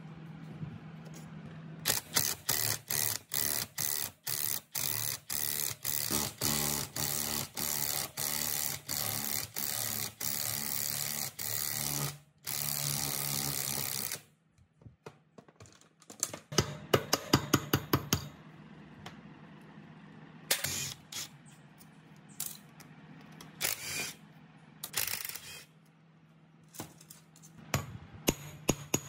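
A cordless impact wrench hammers on a gear puller's screw for about ten seconds, drawing a stepped belt pulley off an old electric motor's shaft, then runs on for about two seconds without hammering. After a pause come scattered clusters of sharp metal knocks and taps.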